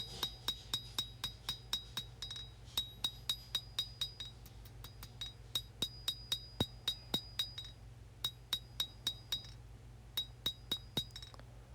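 Hand hammer striking hot 1095 high-carbon steel on an anvil while forging a knife blade, each blow ringing out. The blows come in quick runs of about four a second, broken by short pauses.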